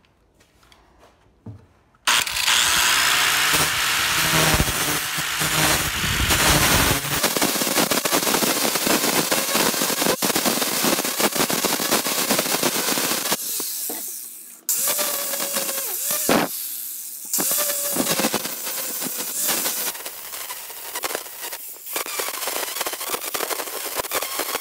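Angle grinder fitted with a wood-carving disc, grinding the bark and outer wood off a firewood log. The loud rasping grind with a motor whine starts abruptly about two seconds in. It drops away briefly about halfway through, then goes on.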